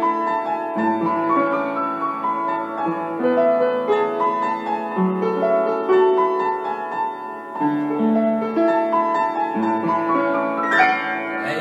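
Piano music: a slow melody of held notes over a bass line.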